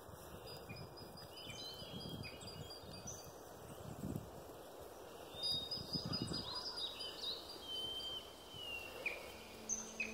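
Small birds chirping and whistling, many short high calls, some sliding in pitch and thickest in the second half, over soft rustling that swells about four and six seconds in.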